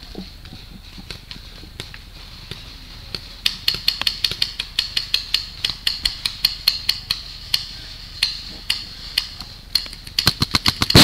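Repeated sharp gunshots from skirmish-game guns, coming in strings of about three or four a second from about three seconds in and growing faster and denser near the end.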